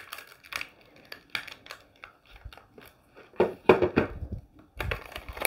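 Plastic crinkling and rustling as a clear stamp sheet is handled and pulled from its plastic package, with light clicks, a louder rustle about three and a half seconds in and a soft knock near the end.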